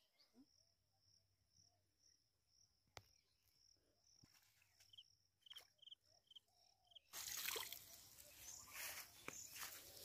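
Faint insect chirring with a short run of high chirps, then about seven seconds in a sudden loud rustling noise as the wet cast net is pulled up out of the pond onto the bank.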